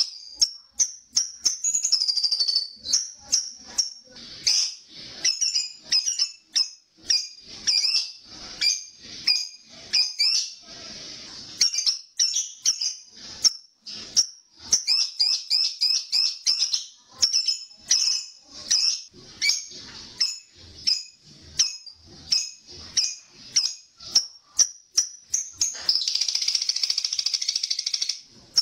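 Lovebird calling: a run of sharp, high-pitched chirps and shrieks, several a second with short gaps. About 26 seconds in it breaks into a long unbroken chattering trill, the 'ngekek' call.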